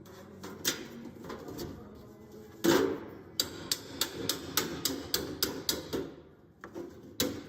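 Hammer tapping sheet-metal duct cleats into place, a quick run of sharp metallic knocks about three a second, with one heavier blow just before they settle into that rhythm and a short pause near the end.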